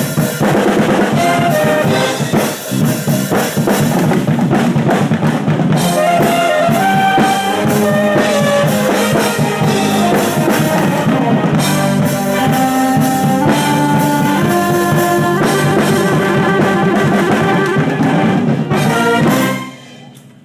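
Marching band playing: trumpets and trombones carry the melody over drum kit and bass drum. The music drops away suddenly near the end.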